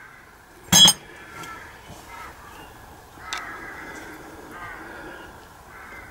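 A single sharp metallic clink about a second in, a metal tool or engine part knocked or set down on the bench. A much smaller click follows a couple of seconds later.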